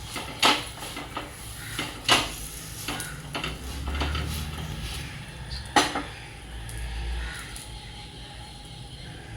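Kitchen utensils and dishes clinking and knocking: a string of sharp clinks, the strongest about half a second, two seconds and six seconds in, with a low rumble in the middle.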